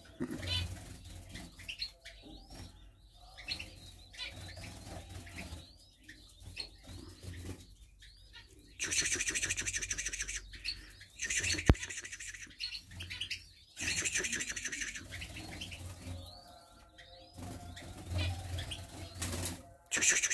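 Newly hatched king quail chicks peeping: many short, high peeps rising and falling, repeated throughout. Several louder bursts of scratchy rustling a second or two long come in between, and one sharp click about two thirds of the way through.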